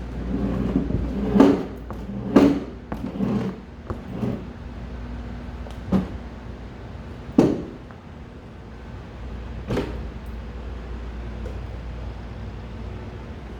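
A school desk with an acrylic sneeze guard being pushed and handled, giving a string of irregular knocks and thumps, most of them bunched in the first few seconds with a few more spaced out later, over a steady low hum.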